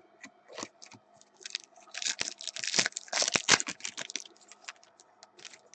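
Crinkling and rustling of a foil trading-card pack and its cards being handled, many short crackles that come thickest in the middle.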